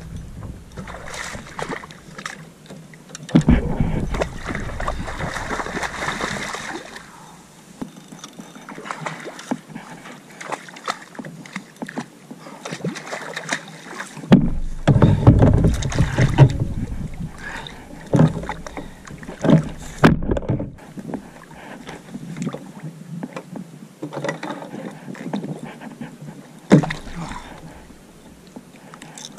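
Water and handling sounds on a fishing kayak during a fight with a longtail tuna: many scattered clicks and knocks from the rod, reel and hull over lapping water. Louder rushes of noise come about three seconds in and again about halfway.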